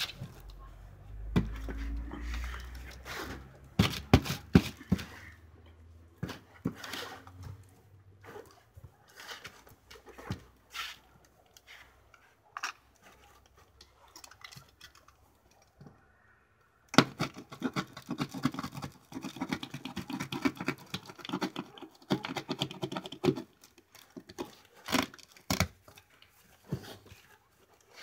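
A cardboard box wrapped in plastic film being handled and turned over, with scattered knocks and taps on the cardboard. A little past halfway come several seconds of dense, fast crackling from the plastic wrap.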